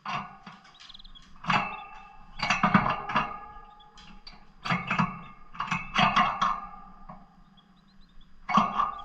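Lovebirds chattering in repeated harsh, squawky bursts, the loudest a few seconds in and again past the middle.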